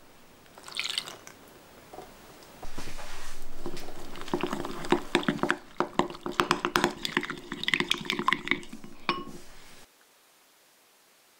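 Plant milk is poured into a glass bowl of vanilla pudding powder, then a metal spoon stirs the mixture with quick, repeated clinks against the glass. The clinking stops abruptly near the end.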